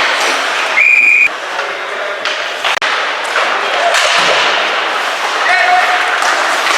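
Ice hockey play in a rink: skates scraping on the ice and sharp clacks of sticks and puck, with a short referee's whistle blast about a second in.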